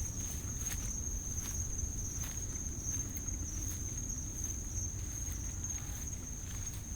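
Crickets trilling steadily at one high pitch, over a low, steady noise, with faint soft taps every second or so.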